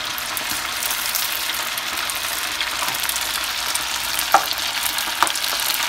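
Flour-coated elbow macaroni deep-frying in medium-hot oil, sizzling steadily, stirred with a wire-mesh skimmer in a stainless steel pot. Two sharp ticks come about a second apart near the end.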